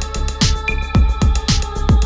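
Electronic background music with a steady, punchy kick-drum beat over sustained synth tones.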